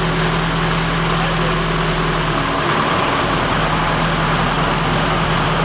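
The snowblower's own D245 four-cylinder diesel runs steadily with a high whine over it. About halfway through its note shifts as the mechanical drive engages and the auger and rotor start spinning with no snow to throw.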